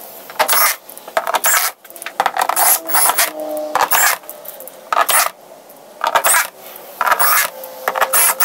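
Cordless drill-driver driving screws into the plastic bottom case of a Yamaha MOXF8 keyboard. It runs in a quick series of short bursts, one after another, with metallic scraping and clicking as the screws go in.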